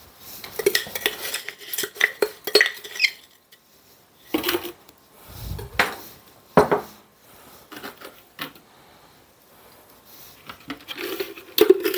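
Kitchen utensil clatter as sugar is measured with a metal scoop from a glass canister into a pot: scattered separate clinks and knocks of metal against glass and the pot, with one dull thump about halfway through and a quick run of clinks near the end.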